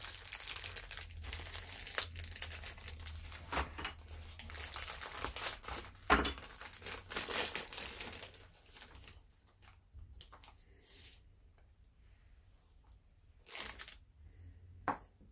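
Clear plastic bag of a brake master cylinder rebuild kit crinkling and rustling as it is opened and the small parts inside are handled. The dense crinkling stops about nine seconds in, leaving only a few brief rustles near the end.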